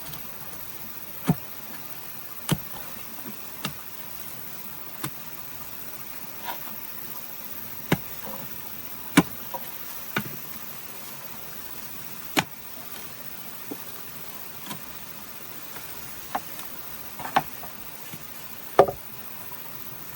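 A series of sharp single knocks at uneven intervals, roughly one every second or two, over a steady hiss.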